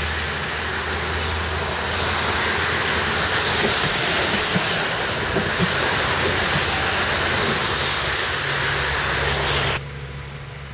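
Tatra tram rolling past close by on snow-covered rails: a steady hiss of wheels on track over a low hum, with a few faint clicks. The sound drops abruptly near the end.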